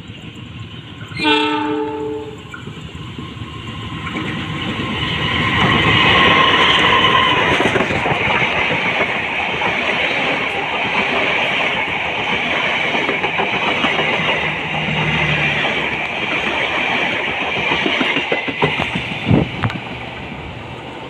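Diesel locomotive horn sounds once, about a second long, near the start. Then a passenger train passes close by: a rumble and rush of steel wheels on rail that builds over a few seconds, holds for about twelve seconds with a few sharp rail clacks near the end, then fades.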